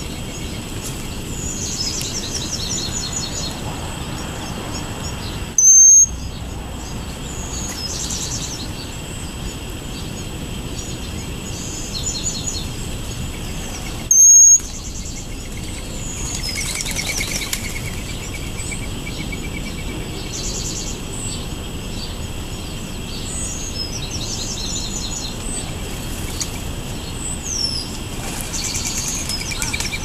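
Small songbirds singing and chirping, a short trilled phrase repeating every few seconds over steady outdoor background noise. Twice, about six and fourteen seconds in, a loud, short, high-pitched beep cuts in over everything.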